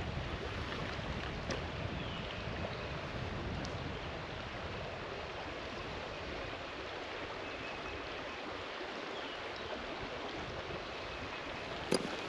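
Steady rush of flowing creek water. A single sharp click comes near the end.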